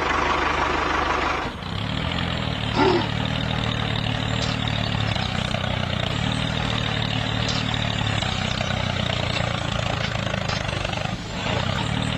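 An engine running steadily with an even hum, with a brief louder sound about three seconds in.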